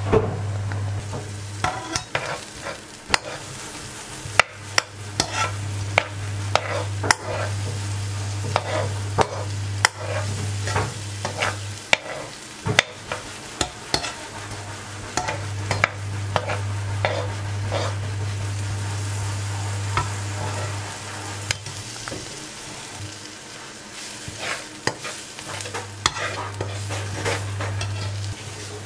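Diced onion frying in a nonstick wok, sizzling softly while a cooking spoon stirs and scrapes it, with frequent clicks and taps of the spoon against the pan. A steady low hum runs underneath and drops out twice for a few seconds.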